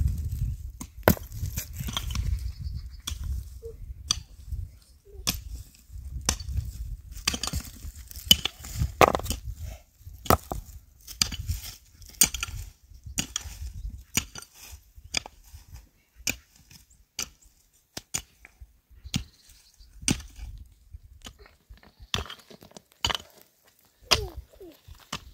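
Wood being struck over and over with a hand tool, as in chopping or hammering during hut building: sharp knocks at about one a second, over a low rumble in the first half.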